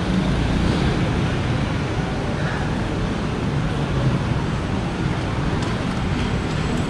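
Steady rushing wind noise on the microphone, a low rumble over faint street ambience.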